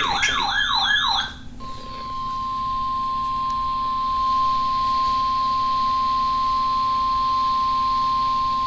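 A warbling alarm tone that rises and falls about three times a second stops about a second in. Then the NOAA Weather Radio 1050 Hz warning alarm tone starts: one steady, loud beep that carries on. It signals that a warning is about to be broadcast, here a severe thunderstorm warning.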